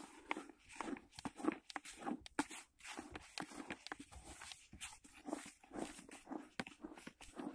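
Dry carp groundbait (sunflower and chocolate flavour) being stirred and kneaded with water by hand in a bucket: a rapid, irregular run of short rustling, crunching strokes.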